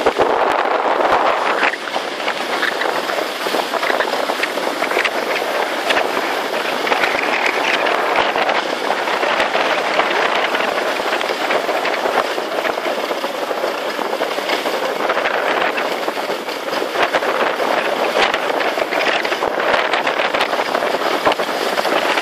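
Skis sliding and scraping over hard-packed, groomed snow, a steady rough hiss full of small rattling clicks.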